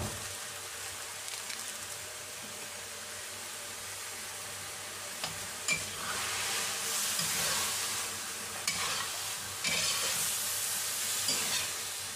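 Salmon pieces with onion, bell pepper and tomato sizzling in a stainless-steel wok over a gas flame, a steady hiss. About halfway through, the food is stirred: the sizzle gets louder and rougher, with a few sharp clicks against the wok.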